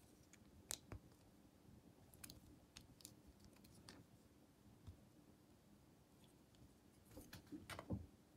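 Faint, scattered clicks of a plastic Transformers Airazor action figure's joints and parts being moved by hand during transformation, with a denser run of louder clicks and handling near the end.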